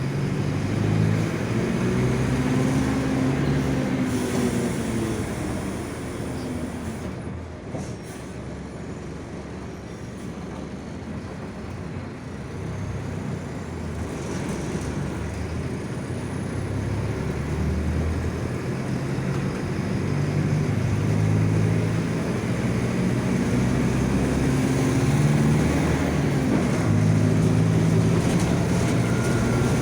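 Mercedes-Benz OF-1722M diesel city bus running under way, heard from on board. Its differential growls, with a whine that rises and falls in pitch as the bus gathers and sheds speed. The drive quietens about a quarter of the way in, then builds steadily again through the second half.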